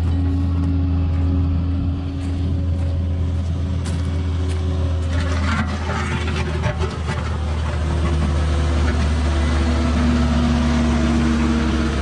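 Diesel engine of a compact construction machine running steadily at constant speed, a loud low hum, with a few light clanks and rattles around the middle.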